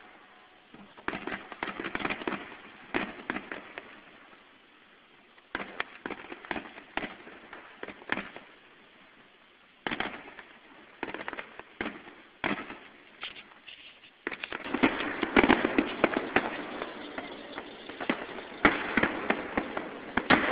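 Fireworks exploding: scattered bangs and crackles, then a dense, louder barrage of rapid bangs from about two-thirds of the way in.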